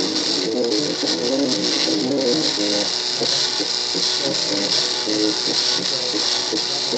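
MakerBot Cupcake CNC 3D printer's stepper motors whining as the build platform and extruder move, in short tones that jump between pitches several times a second, over a steady high hiss.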